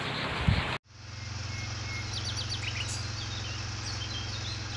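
Outdoor ambience of birds chirping in quick short calls over a steady low hum. It comes in about a second in, after a noisy stretch cuts off abruptly.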